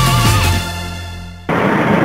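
Background music with a held low note fades out over about a second, then cuts abruptly to a steady, loud mechanical noise.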